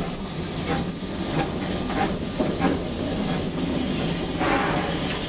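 Steady steam hiss and low rumble inside the cab of a Baldwin 2-8-2 steam locomotive, with a few light knocks; the hiss swells louder about four and a half seconds in.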